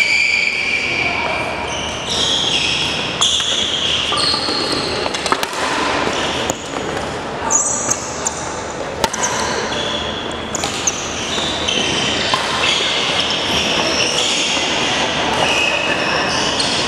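Sports hall ambience: many short, high squeaks of athletic shoes on the hardwood floor, with a few sharp taps and voices in the background, all ringing in a large echoing gym.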